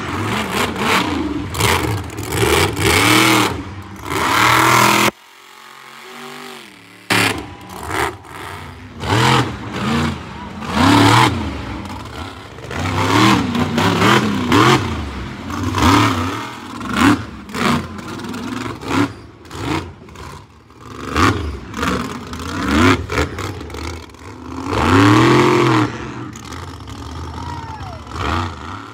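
Monster truck engines revving hard in repeated bursts, the pitch sweeping up and down over and over. The sound drops off briefly about five seconds in.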